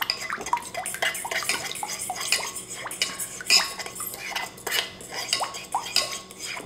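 Small metal shrimp fork stirring a thick miso marinade in a bowl, clinking quickly and irregularly against the bowl as it breaks up the lumps of miso.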